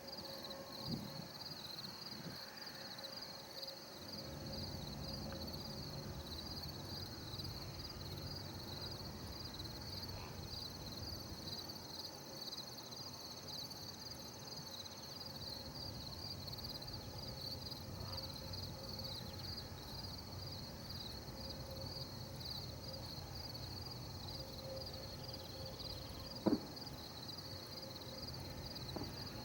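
Insects chirping in a steady, rapid, high-pitched pulse over a low steady background noise, with a single sharp click about twenty-six seconds in.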